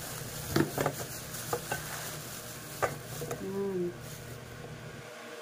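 Pili fruits knocking against each other and a metal bowl as they are tipped from a plastic bag and handled, with plastic rustling: a few sharp clicks, the loudest just under a second in and near three seconds in.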